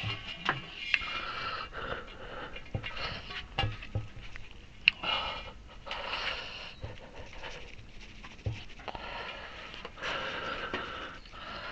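Repeated short hissing squirts of soapy water from a sprayer onto a tire bead, to lubricate it for mounting on the rim, with scattered knocks and clunks of handling.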